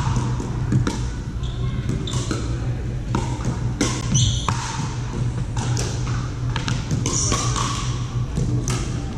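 Pickleball paddles hitting the hollow plastic ball and the ball bouncing on the hardwood gym floor: a run of sharp knocks, some from neighbouring courts, echoing in the large hall. There are a few short sneaker squeaks on the floor, over a steady low hum.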